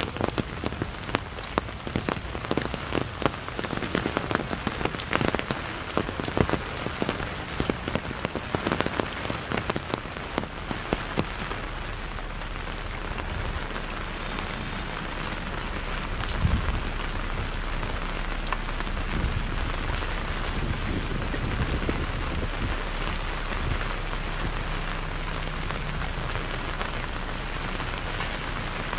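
Steady rain falling. Through about the first dozen seconds many close, sharp drop hits sound over it, several a second, then it settles into an even hiss.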